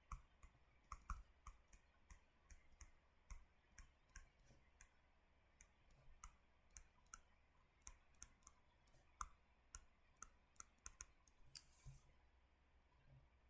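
Faint, irregular light clicks and taps, a few a second, over near silence.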